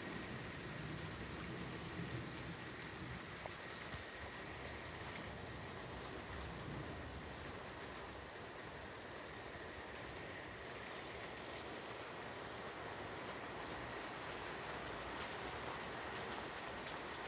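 Insects trilling in a steady, unbroken high-pitched chorus, over a faint even background hiss.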